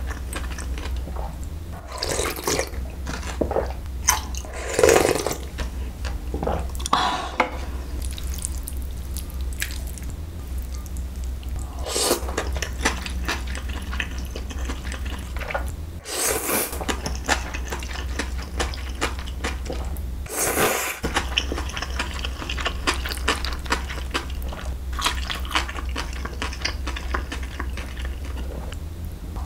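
Close-up wet eating sounds: a person slurping cold milmyeon wheat noodles out of their broth and chewing, with about half a dozen loud slurps spread through. A steady low hum runs underneath.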